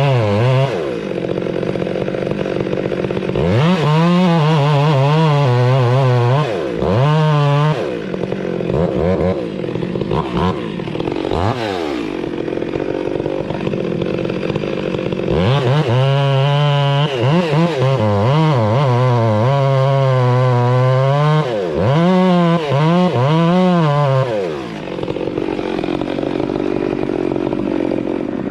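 Chainsaw running and cutting wood, opened up to full throttle in several long bursts with its pitch rising and falling, dropping back to a lower steady running between cuts.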